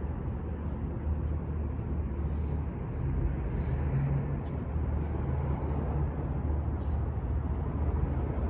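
Steady city street traffic noise: a low vehicle engine rumble, with an engine hum a little stronger through the middle.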